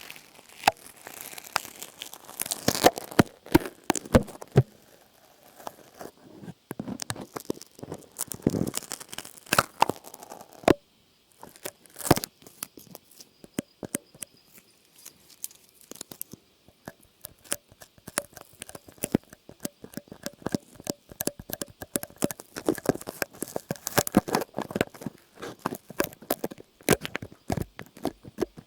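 Close-up crinkling and crackling with some tearing: dense, irregular sharp crackles that stop briefly a little before the middle.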